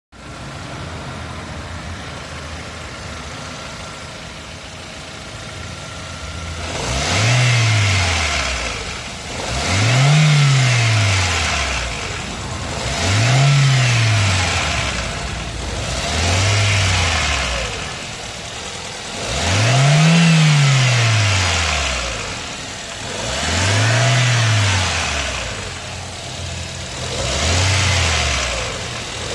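Ford Fiesta's 1.6 Zetec Rocam four-cylinder engine idling steadily, then revved seven times, each rev rising and falling back toward idle. The owner hears an abnormal noise as the revs drop, which he thinks comes from the cylinder head, with the oil and check-engine lights on.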